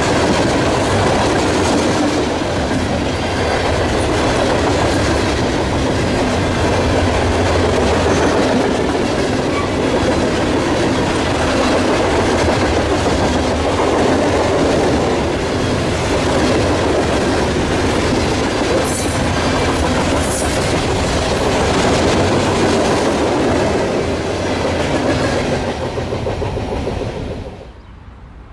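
Freight train of open-top hopper cars rolling past close by, with steady wheel-on-rail noise. The noise cuts off suddenly near the end.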